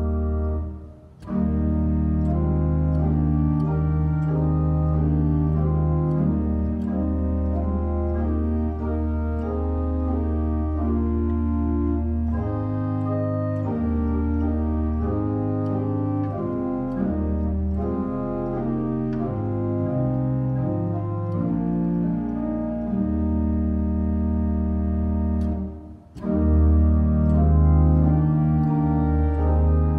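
Neutel church organ playing sustained chords over deep bass notes, the bass line moving note by note partway through. The music breaks off briefly twice between phrases, about a second in and near the end, and comes back louder after the second break.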